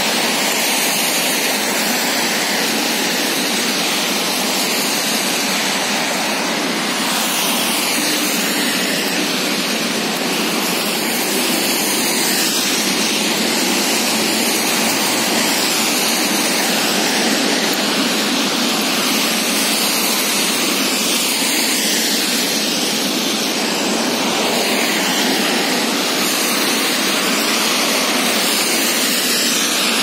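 Steady hiss of traffic on a wet multi-lane avenue: car tyres running over rain-soaked asphalt, a continuous wash of road noise.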